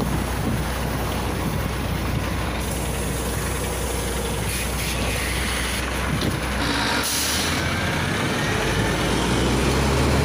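A LiAZ 5292.67 city bus, with a Weichai WP7NG280E51 compressed-natural-gas engine, running at a stop with a steady low drone. A short hiss of compressed air comes about seven seconds in, and near the end the engine note rises as the bus pulls away.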